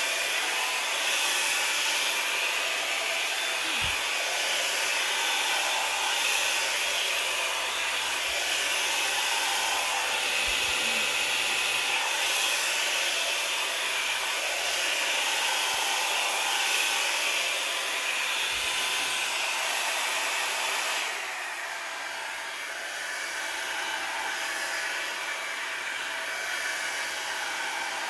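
Revlon Plus blow dryer running on its cool setting, a steady blowing hiss. About 21 seconds in, the sound drops a little and turns duller.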